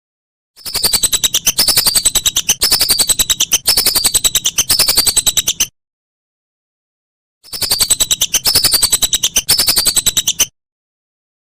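Whistling duck (belibis) calls: fast chattering with a string of repeated falling whistles, in two bouts cut apart by dead-silent gaps, one from about half a second in to past the middle and a shorter one soon after.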